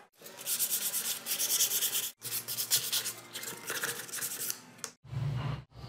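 Hand-sanding carved wood, rapid back-and-forth scratchy strokes of sandpaper over the wooden surface in two runs broken by a brief cut. Near the end there is a short low hum.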